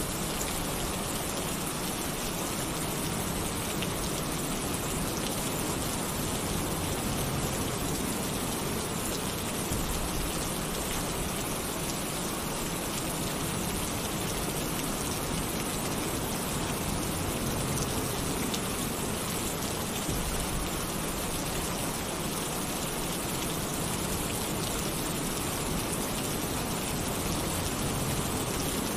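Heavy rain falling on a tin roof, a steady, even hiss of dense raindrops without let-up.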